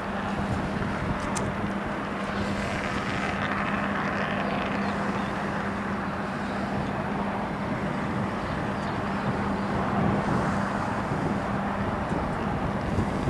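EMD GP9 switch locomotive's 16-cylinder 567 two-stroke diesel running as it moves slowly, a steady low hum over a constant broad outdoor rush.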